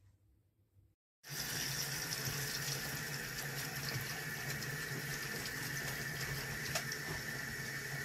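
Tap water pouring in a thin stream into a bowl of water holding raw chicken pieces being washed, a steady splashing rush that starts suddenly about a second in.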